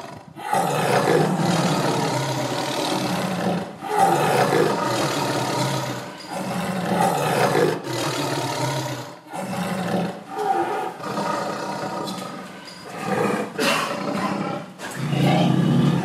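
Animal roars and growls in repeated bursts of one to two seconds, with abrupt breaks between them, starting about half a second in.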